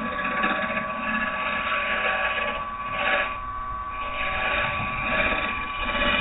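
Wood lathe running with a round carbide finisher tip cutting spinning green oak: a steady motor hum under a scraping hiss that swells and fades as the tool is moved along the work.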